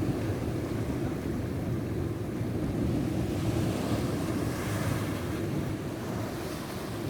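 Ocean waves washing onto a beach, with wind rumbling on the microphone; a wave's wash swells about halfway through.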